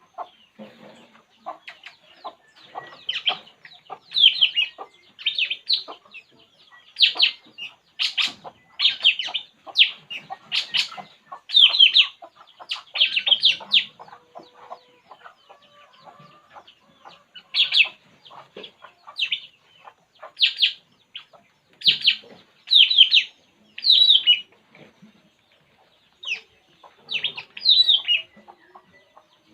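A burung puling calling: a long run of short, high chirps, each dipping slightly in pitch, coming about one a second with a pause around the middle.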